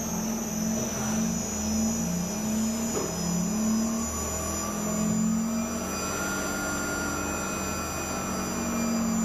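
Steady motor hum with wavering low tones, over water churning in a test tank around a submerged electric butterfly valve.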